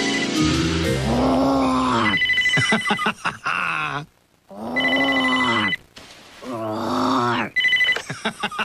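Telephone ringing in repeated short rings, about four in all, two to three seconds apart. Between and over the rings, a man's voice growls in play.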